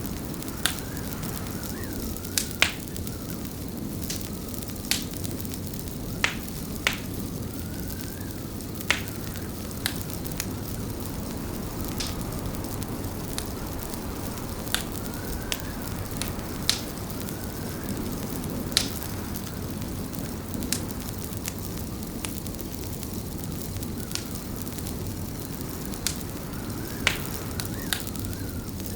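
Wood fire in a fireplace crackling, with sharp irregular pops every second or two over a steady low rumble, and a faint wavering whistle beneath.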